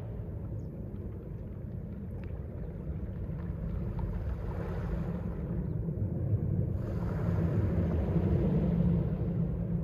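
Mediterranean sea waves washing onto the shore, a steady low surf rumble. About seven seconds in, a wave's wash swells up and grows louder.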